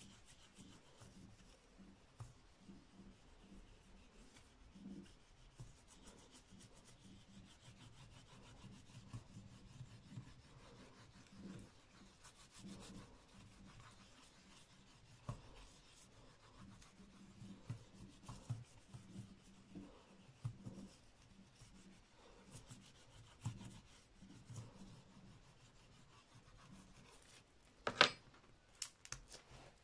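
Back of a metal spoon rubbed over paper on an inked lino block, burnishing the print: faint, irregular rubbing and scraping. Near the end comes one sharp knock as the spoon is set down.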